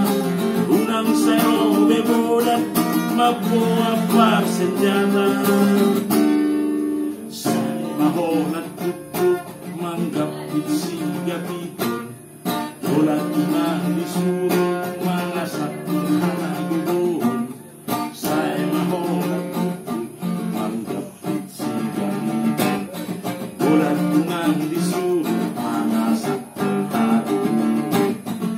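A man singing while strumming chords on a nylon-string classical guitar.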